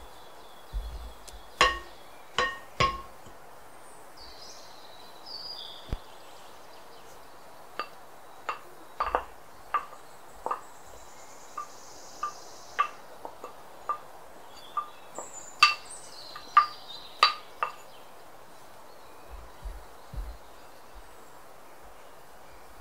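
Glass mixing bowl clinking and ringing as a wooden spoon stirs dry almond flour in it, and a small glass dish taps against its rim while cornstarch is poured in. The taps are sharp and scattered, some in quick runs of two or three, with a faint scrape of the powder.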